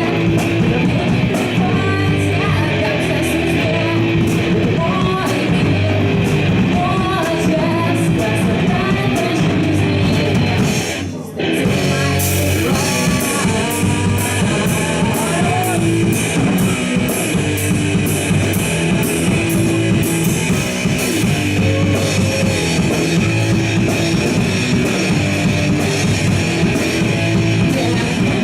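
Rock band playing live: guitar, drum kit and singing. About eleven seconds in the music drops away for a moment, then the full band crashes back in.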